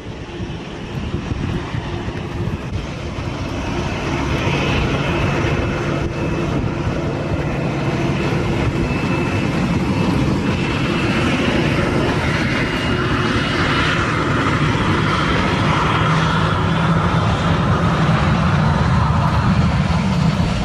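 Boeing 737 jet engines running up, a low rumble under a whine that slowly rises in pitch and grows louder as the airliner moves off down the runway, typical of spooling up for take-off.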